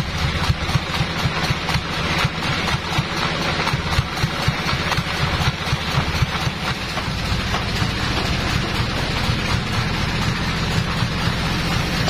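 Band sawmill's engine running steadily at idle, a low hum, with scattered knocks and clatter over it.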